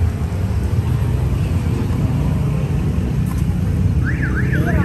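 Steady low rumble of street traffic and engines. Near the end comes a short, high, fast up-and-down warble.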